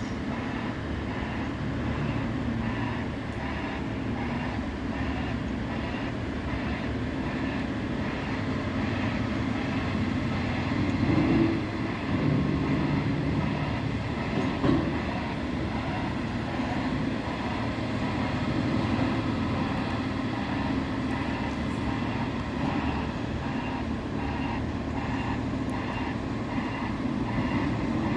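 Heavy demolition machinery, such as excavators, running: a steady low engine rumble with a regular clatter, briefly louder a little before the middle.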